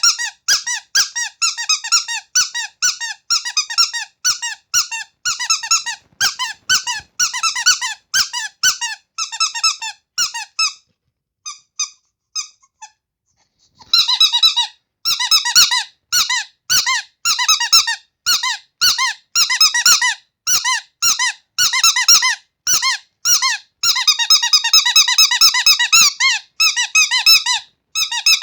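Rubber carrot squeaky toy squeezed over and over, short high squeaks at about three a second. Near the middle the squeezing stops for a few seconds, with only a few faint squeaks, then starts again.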